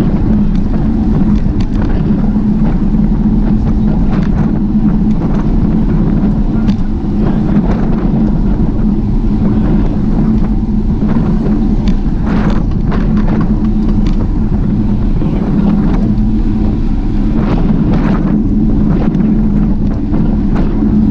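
Steady wind and road rush from riding on a bicycle, with a constant low hum and scattered clicks and rattles.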